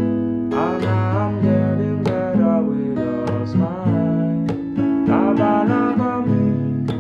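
Background music led by a plucked and strummed acoustic guitar, with sharp strokes about every half second over sustained notes.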